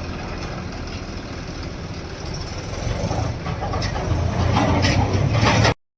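Heavy diesel engine running steadily, getting louder about halfway through, with a few metallic clanks near the end before the sound cuts off abruptly.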